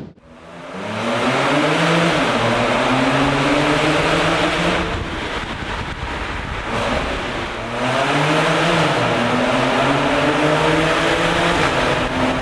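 Car engine pulling under acceleration, heard from inside the car. It fades in over the first second, climbs in pitch, dips briefly about two seconds in and again near eight seconds, then climbs again.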